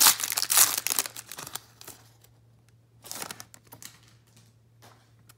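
Foil wrapper of a trading-card pack crinkling as it is peeled and torn open, loud and dense for the first second and a half. It is followed by a short rustle about three seconds in as the cards are handled.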